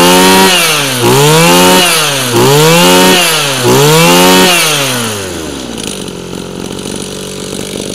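Mitsubishi TL26 26 cc two-stroke brush-cutter engine being revved hard, its pitch dropping and climbing again three times. It then falls back to a steady idle for the last couple of seconds.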